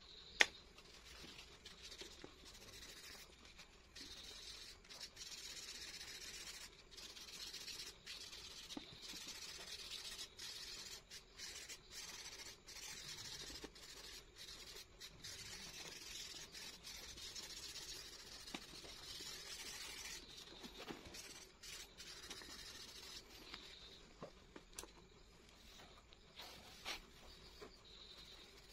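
A hand rubbing over drawing paper, smudging pencil graphite into soft shading: a faint, scratchy rubbing in runs with short breaks, thinning out near the end. A single sharp tap comes just after the start.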